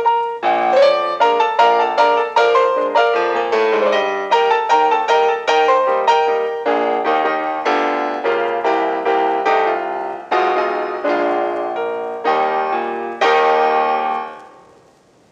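Solo piano background music, notes struck in quick succession, fading out near the end.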